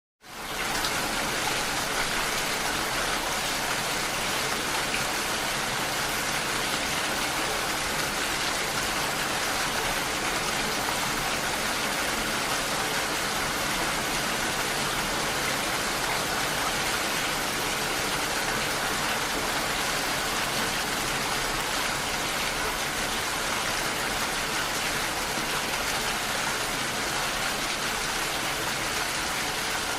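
Rain falling steadily, an even, unbroken hiss that fades in within the first half second and holds level throughout, with no thunder.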